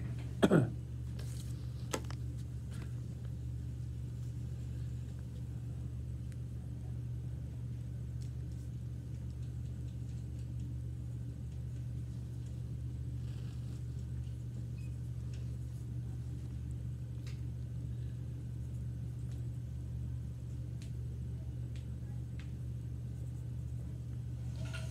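Room tone: a steady low hum, with a short loud noise right at the start and a single knock about two seconds in, then faint scattered ticks.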